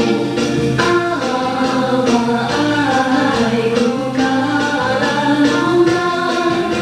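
Music: a song with a singing voice over instrumental backing with light percussion.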